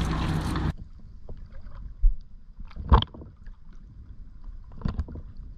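A steady rushing noise that cuts off under a second in, then small waves lapping close by at the water's surface, with short sharp slaps of water about two, three and five seconds in, the middle one the loudest.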